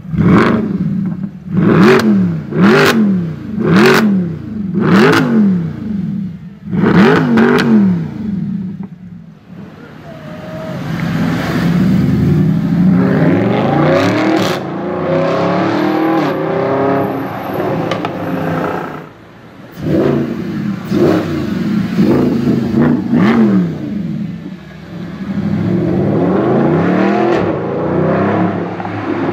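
Mercedes SLS AMG's 6.3 V8 through an Akrapovic exhaust: about six short, sharp revs, each climbing and dropping straight back, then a long pull under acceleration that rises through the gears. More quick revs follow, and another climbing pull near the end.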